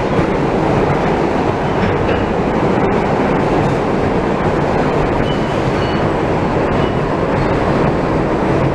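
Ride inside an R160B subway car with Siemens propulsion running express at speed: a loud, steady roar of wheels on rail and the car rushing along.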